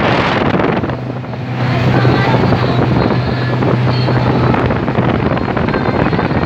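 Boat engine running steadily as the boat travels, a constant low hum under heavy wind noise on the microphone.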